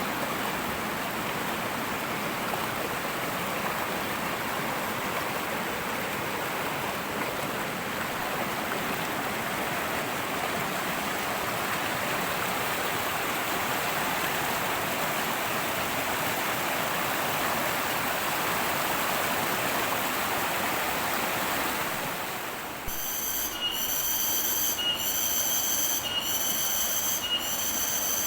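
A fast-flowing river rushing steadily. About 23 seconds in, a garengpong cicada starts a shrill, pulsing buzz, repeating about once a second over the quieter rush of water.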